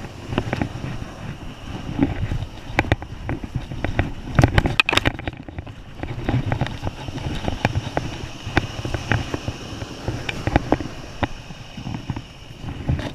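Wind buffeting a body-worn camera's microphone, with irregular close knocks, scuffs and rustles from a landed shark being handled on the sand. The knocks come thickest about four to five seconds in.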